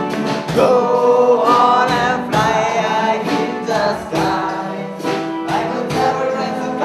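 A song playing: a voice singing sustained, gliding notes over instrumental accompaniment.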